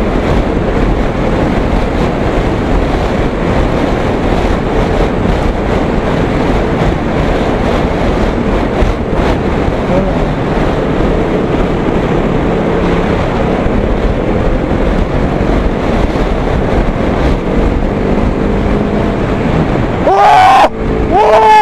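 Loud, steady rush of wind on the microphone and road noise from a motorcycle riding at speed. Near the end come two loud wailing cries that fall in pitch.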